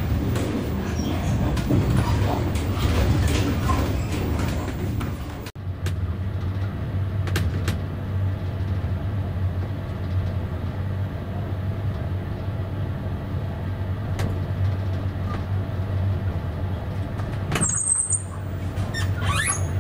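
Inside a moving double-decker passenger train carriage: a steady low rumble and hum of the running train. The sound changes abruptly about five seconds in, and a brief high squeal comes near the end.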